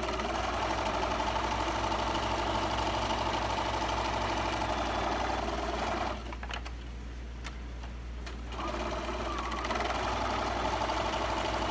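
Computerised sewing machine stitching steadily. It stops for about two and a half seconds in the middle, with a faint click or two, then starts stitching again.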